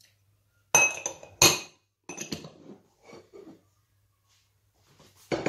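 Drinking glass knocking against a stainless steel mixing bowl as cornstarch is tipped out of it: two sharp ringing clinks about a second in, then lighter knocks and a louder clatter near the end.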